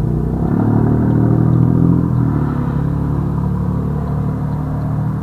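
A motor engine running close by: a steady low rumble that starts abruptly, swells about a second or two in, then eases off a little.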